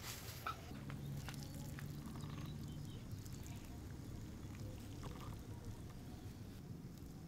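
Hot water scooped from a wok with a bowl and poured over a crocodile's hide, splashing and trickling onto the skin and the leaves under it. A faint steady low hum runs underneath.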